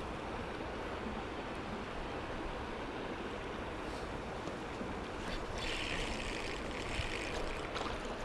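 Steady rushing of a flowing trout stream, with a brighter, hissier stretch for about two seconds past the middle.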